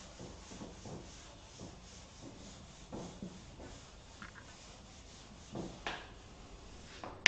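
Chalkboard duster wiping chalk off a blackboard in repeated back-and-forth strokes, a soft rubbing hiss. It ends with one sharp knock.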